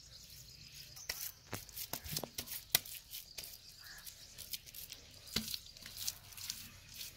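Wet straw-mixed clay squelching and crackling under bare hands as it is pressed and smoothed onto the rim of a mud tandoor wall: many small irregular clicks from about a second in.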